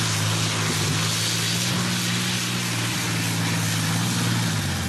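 Multi-row Zvezda M503 42-cylinder diesel in a tractor-pulling machine running hard under load during a pull: a steady deep drone at an even pitch with a loud rushing noise over it, easing off just before the end.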